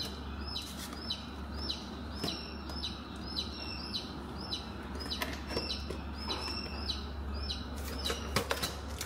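Short high chirps, each dropping slightly in pitch, repeat about twice a second over a steady low hum. Light clicks of a plastic tub and a metal snake hook being handled on a concrete floor come around five seconds in and again near the end.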